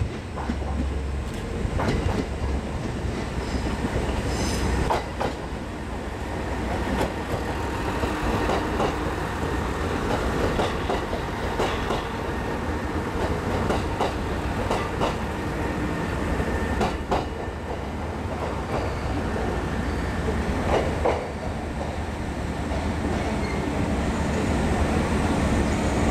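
JR West KiHa 189 series diesel multiple unit rolling slowly past: its diesel engines running with a steady low rumble while the wheels clack irregularly over rail joints and points.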